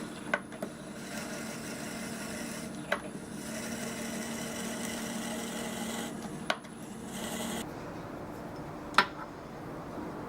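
Taig benchtop lathe running with a cutting tool working the bore of a hickory bushing, a steady hum with a light rubbing scrape. A few sharp clicks come through, and the hum drops away about three-quarters of the way in.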